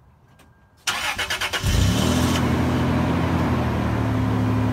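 A 2000 Toyota 4Runner's engine being started. About a second in the starter cranks briefly with a rapid pulsing, then the engine catches and settles into a steady idle.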